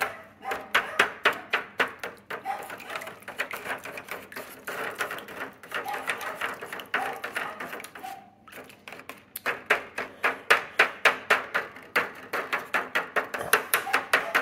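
A spoon scraping and tapping against the thin sides and bottom of an aluminium foil pan as soup base is stirred into warm water, a quick steady rhythm of about three or four strokes a second with a short pause a little past halfway.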